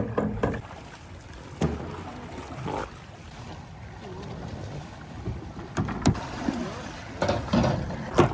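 Small boat on the water: a low, steady wash of water with occasional short knocks.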